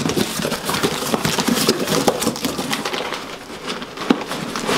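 Rustling and crinkling of packaging being handled, with many small clicks and scrapes.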